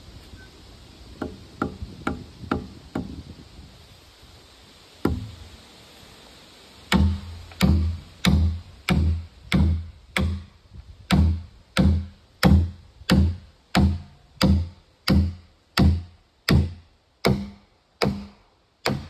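Hammer driving a long steel spike down into a stacked log. A few lighter taps come first, then a steady run of about eighteen hard blows, roughly one and a half a second, each with a short low ring.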